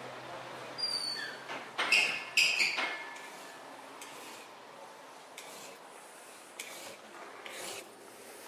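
Hand file rasping across the edge of a metal bangle in slow strokes, about one a second, after a few sharp metallic clinks about two seconds in.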